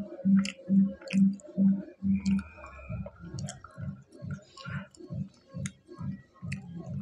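A person chewing food close to a clip-on microphone: steady low chewing thuds about twice a second, with wet mouth clicks in between.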